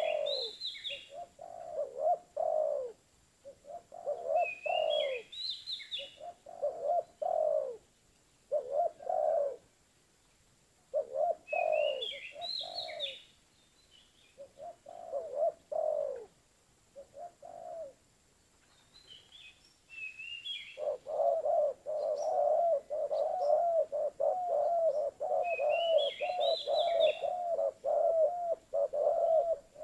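A dove cooing in short phrases of a few low notes separated by pauses, then about 21 s in breaking into a long, rapid run of coos. Every several seconds a higher, quicker chirping phrase from another bird comes over the top.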